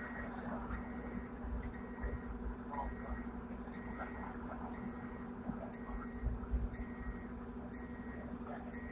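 Hong Kong tram running, its cab filled with a steady electrical hum and a few light knocks, while a short electronic beep repeats about once a second.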